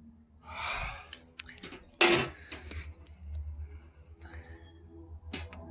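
Hand work on an RV door lock and its screws: a brief scrape about half a second in, a sharp knock about two seconds in, and scattered small metallic clicks.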